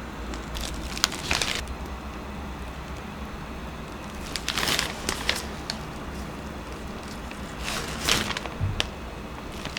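Handling noises from baking work: a few sharp clicks and three short rustling or scraping stretches, over a low steady hum.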